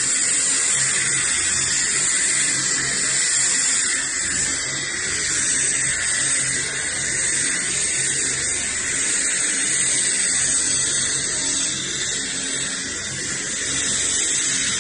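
Helicopter's turbine engine running on the ground, a steady high whine that holds without change.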